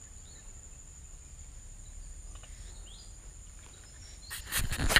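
A steady high-pitched drone of insects over faint outdoor background noise. Near the end there is a short, louder burst of close rustling and scraping.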